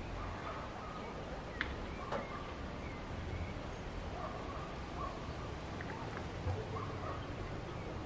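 Outdoor garden ambience: a steady hiss of wind, with birds calling now and then in short calls every second or so, and a couple of sharp ticks about a second and a half and two seconds in.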